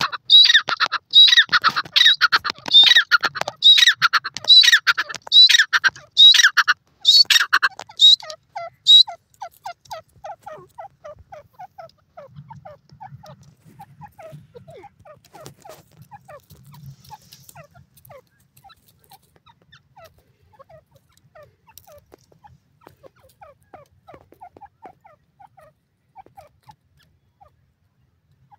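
Grey francolin pair calling: a loud call repeated over and over, more than once a second, for about the first nine seconds, then a long series of much softer, quicker short notes.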